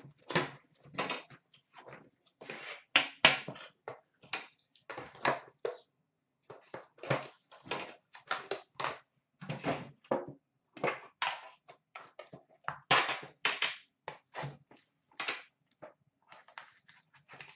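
An Upper Deck The Cup hockey card box being unwrapped and opened by hand: plastic shrink-wrap crinkling and tearing, and the metal tin and its lid clunking and scraping as they are handled. The sound comes as a string of short, irregular rustles and knocks.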